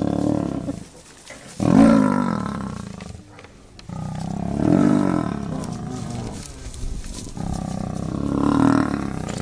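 Big wild animals growling: a series of long, pitched growls that rise and fall in pitch, one fading out at the start and three more after it, the loudest starting abruptly about a second and a half in.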